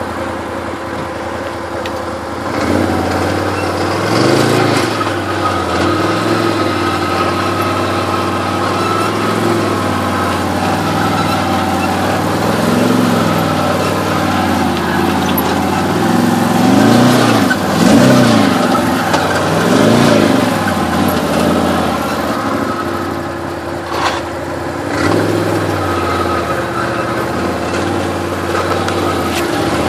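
Can-Am Maverick side-by-side's engine idling and revving up and down several times while crawling over rock ledges. There is one sharp knock late on.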